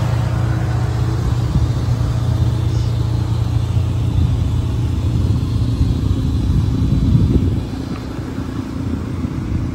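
A car engine idling steadily: a low, even rumble with a steady hum that eases somewhat about seven and a half seconds in.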